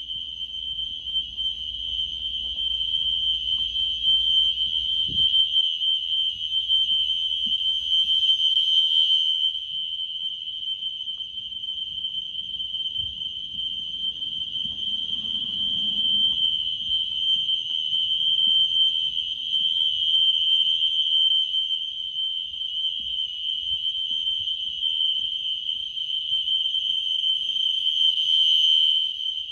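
System Sensor SpectrAlert Classic fire alarm horns sounding a continuous steady high-pitched tone, set to steady rather than temporal-3 pattern, with the loudness slowly swelling and fading.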